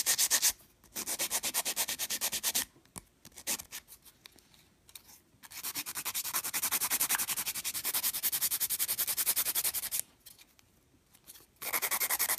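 Hand nail file rubbing back and forth across a nail tip coated in acrylic dip powder, filing down the bulky, uneven layer to shape it. Quick, even strokes come in several bursts with short pauses between, the longest run about four seconds long in the middle.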